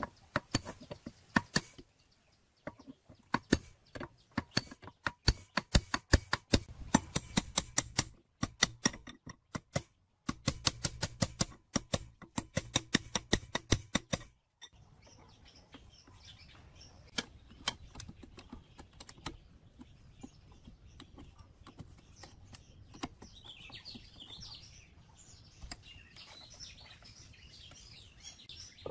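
Rapid metal-on-metal hammer taps, several a second, on a steel pipe drift driving a bearing onto a water pump shaft; the taps stop about fourteen seconds in. After that come only a few faint clicks, with birds chirping near the end.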